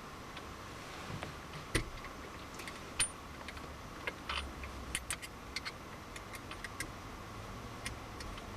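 Scattered light metallic clicks and taps from an Allen key and a metal gear knob being handled while the knob's small grub screws are tightened onto the gear lever, with most of the clicks coming in the second half.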